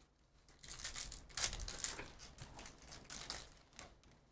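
Foil trading-card pack wrappers crinkling and trading cards being handled, in a series of short rustles.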